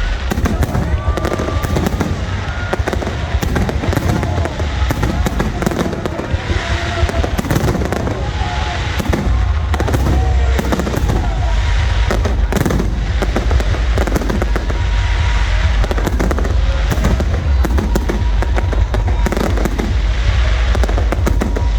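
Aerial fireworks display: many shells bursting in rapid, dense succession over a constant low rumble.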